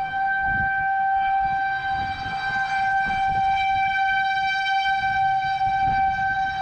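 Outdoor warning siren (civil defense siren) sounding one steady, unwavering tone, over a low, uneven rumble.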